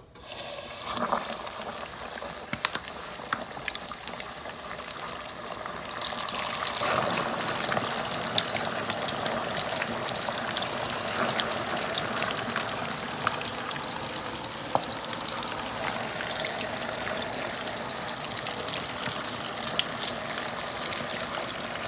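Floured oxtail pieces deep-frying in hot grease: a steady sizzle with scattered crackles and pops, growing louder about seven seconds in.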